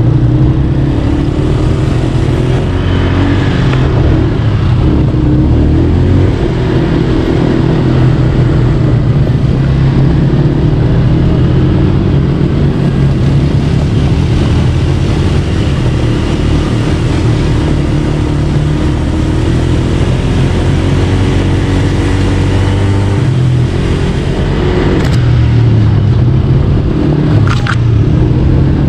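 Four-wheel ATV buggy's engine running while being ridden, its pitch wavering up and down with the throttle.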